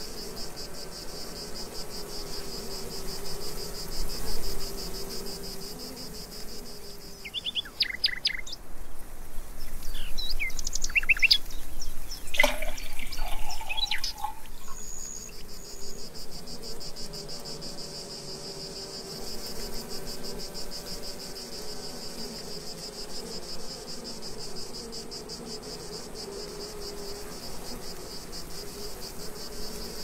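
Crickets singing a steady, rapidly pulsing high trill. It breaks off for several seconds in the middle, where a bird gives a string of short chirps, the loudest about twelve seconds in, before the trill resumes.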